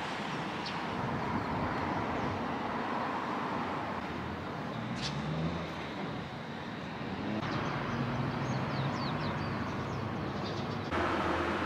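Town street ambience: a steady noise of traffic and vehicle engines, with a low hum from about halfway and a few short high chirps near the end.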